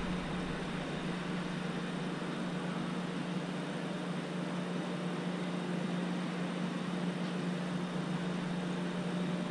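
A steady low hum under an even background hiss, unchanging throughout.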